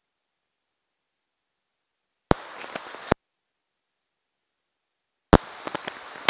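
Dead digital silence from muted audio, broken about two seconds in by a sharp click and a brief stretch of outdoor ambient hiss that cuts off with another click. Near the end the ambience cuts back in with a loud click and a few light ticks.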